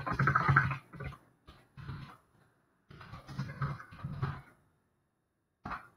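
Quiet, indistinct muttering from a person under their breath, in a few short phrases with pauses between them, and one brief sound near the end.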